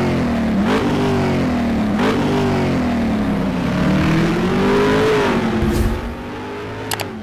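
Motorcycle engine accelerating through the gears: the pitch climbs and drops twice in quick shifts, then climbs for longer in a higher gear before fading away. A short sharp click near the end.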